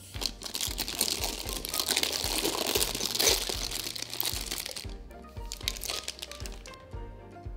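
Plastic piping bag full of cookie batter crinkling and rustling as it is handled and lifted out of a glass jar, stopping about five seconds in. Background music with a steady beat plays underneath.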